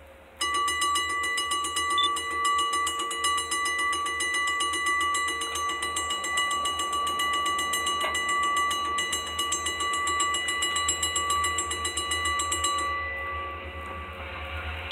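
Railroad crossing warning bell ringing in rapid, even dings. It starts suddenly and stops about thirteen seconds in.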